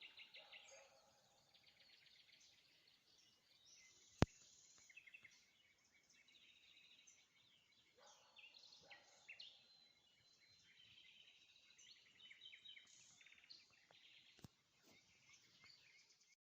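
Faint birdsong, several small birds chirping and trilling on and off. A single sharp click about four seconds in, and a fainter one near the end.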